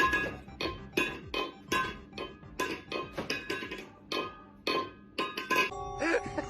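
Music made of quick struck, ringing notes, about three a second, which change near the end to held steady tones.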